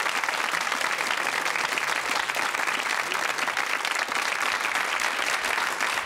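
Studio audience applauding, many hands clapping at a steady level.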